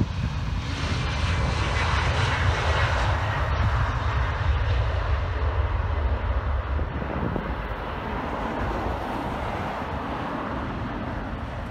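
Embraer 190's twin CF34 turbofan engines at take-off thrust as the airliner lifts off and climbs away: a steady jet roar with a low rumble and a hiss that is strongest in the first few seconds, then fades gradually as the aircraft climbs.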